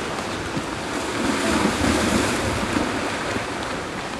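Spring ice drift on the Nemunėlis river: a steady rush of water and drifting ice floes, with wind buffeting the microphone.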